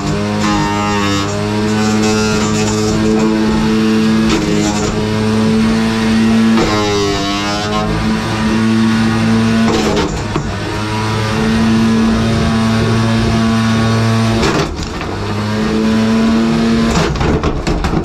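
A 3 lb combat robot's spinning weapon whirring at a steady pitch. The pitch dips and winds back up about a third of the way through, and sharp hits come later as it smashes into a plastic coffee maker.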